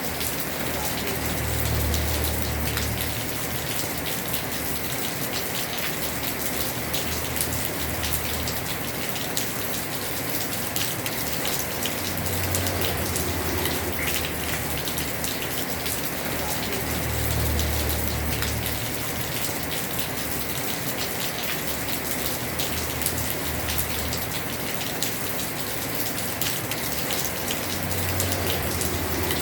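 Heavy rain pattering steadily on a house roof: a dense hiss of countless drops. A low rumble swells and fades beneath it about five times.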